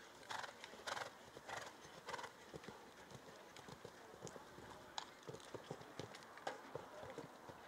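Show-jumping horse cantering on a sand arena. Faint, rhythmic strides about every 0.6 s for the first two seconds, then lighter, scattered knocks as it goes towards the fence.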